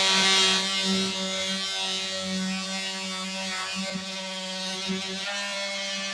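Porter Cable oscillating multi-tool with a sanding pad buzzing steadily as it sands wood baseboard trim with fine-grit paper. It is loudest in the first half second, then drops a little and wavers slightly as the pad works the joint.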